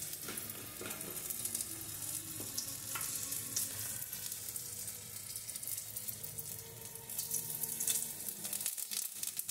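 Bay leaves and green chillies sizzling and crackling in hot oil in a kadai, stirred with a metal spatula.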